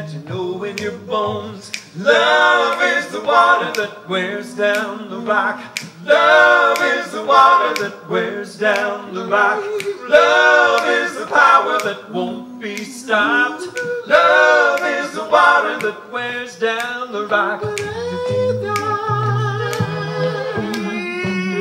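Male vocal trio singing a folk song a cappella: one voice alone at first, then close three-part harmony from about two seconds in. Finger snaps keep the beat throughout.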